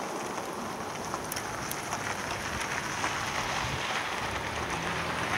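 Steady outdoor background hiss, with a few faint clicks as a plastic post level is strapped onto the wooden post.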